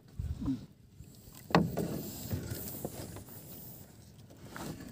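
Water splashing and sloshing around a small paddled outrigger canoe, with one sharp splash or knock about a second and a half in that fades out over the next second.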